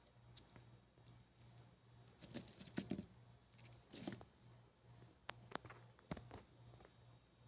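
Faint handling sounds from hands breaking open and moving fried cheese bread balls (pão de queijo) over a glass plate. There are soft rustles a little over two seconds in and again around four seconds, then a few sharp light clicks, over a faint low hum.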